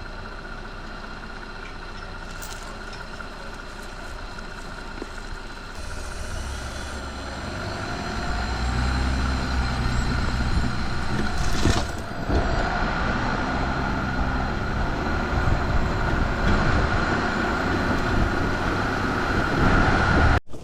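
Vehicle being driven, its engine and road noise steady at first, then growing louder from about six to eight seconds in as it picks up speed. A brief knock comes about twelve seconds in.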